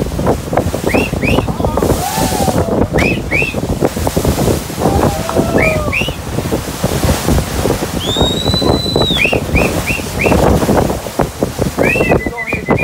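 Water rushing and churning along the hull of a moving boat, with wind on the microphone. Over it, short whistled notes that rise and fall, mostly in pairs every couple of seconds, with one longer held whistle near the middle followed by a quick run of four.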